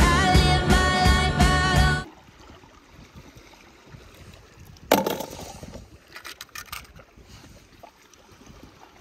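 Music with sustained notes over a bass beat cuts off abruptly about two seconds in. Then quiet seaside ambience with faint water, a sharp click about five seconds in and a few lighter clicks after it.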